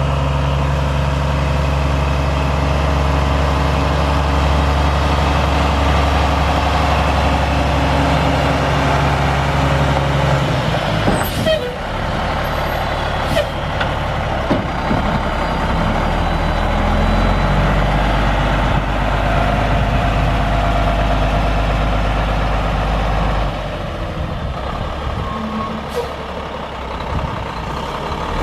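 Cummins ISM inline-six diesel in a semi truck idling steadily. About ten seconds in the engine note changes and a few sharp clicks are heard, with another click near the end, and the engine gets somewhat quieter about 23 seconds in.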